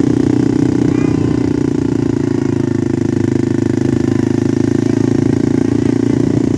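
ATV engine running steadily while the quad is ridden, a constant engine drone with no revving.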